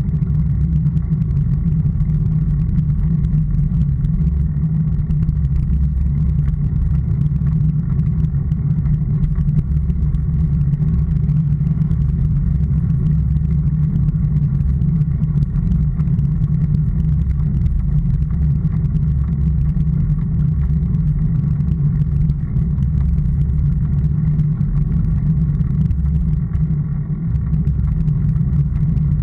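Steady, muffled low rumble of road vibration and wind through a camera mounted on a bicycle climbing a rough asphalt street.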